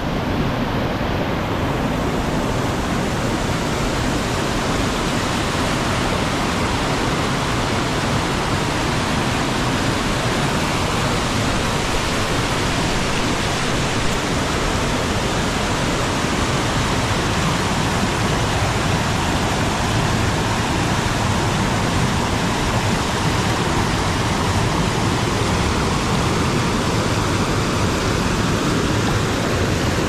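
Bash Bish Falls, a waterfall whose final drop is 60 to 80 feet, pouring heavily into its pool: a steady, loud rush of falling water.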